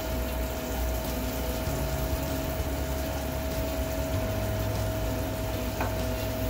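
Julienned carrots cooking in melted butter in a stainless steel sauté pan over a gas flame, a steady sizzle over a constant background hum with a steady tone. A light click near the end.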